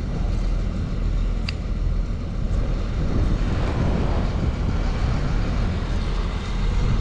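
Surf breaking on a beach: a steady rushing noise with a deep rumble underneath, and one sharp click about a second and a half in.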